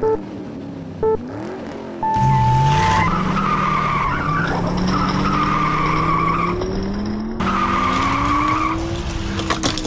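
Race-start beeps, two short ones and then a longer, higher one about two seconds in. A race car engine sound effect follows, its pitch climbing slowly, with a tire-squeal whine over it and an abrupt break in the sound near the end.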